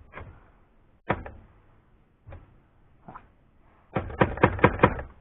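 Remington Noiseless No. 6 typewriter being typed on: a few separate key strikes, then a quick run of about eight near the end. It is being test-typed for its escapement, which still skips now and then.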